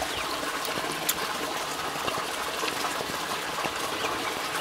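Steady rushing of running water, with a few faint, short chirps above it.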